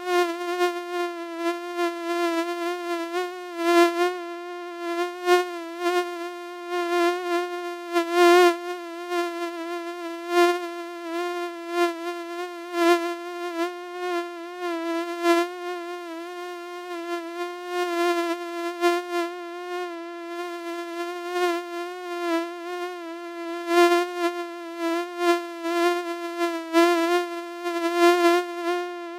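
Mosquito in flight: a steady, high-pitched wingbeat whine with a slightly wavering pitch, swelling and fading in loudness again and again.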